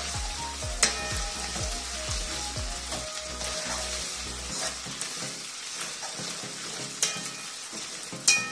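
Onions and ginger-garlic paste sizzling in hot oil in a steel kadai while a metal spoon stirs them, with a few sharp clinks of the spoon against the pan.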